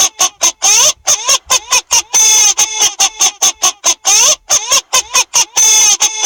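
Loud, rhythmic chicken-like squawks, several short ones a second, with a longer drawn-out squawk about every two seconds, repeating as a loop.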